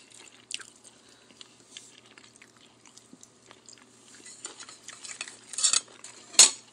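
Metal cutlery clinking and scraping against a plate, with scattered light clicks, a brief clatter about five and a half seconds in, and one sharp louder knock near the end.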